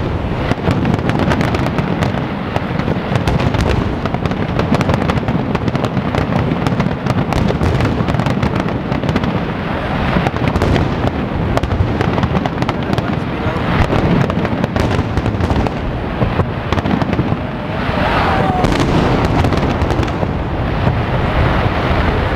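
Professional aerial fireworks display in a heavy barrage, many shells bursting at once: rapid, overlapping bangs and pops with no let-up.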